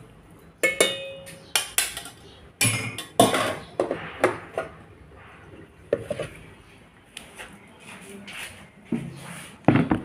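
Metal tongs clanking and scraping against a stainless steel pot in irregular knocks, a few of them ringing briefly. A louder knock near the end as the pot is set down.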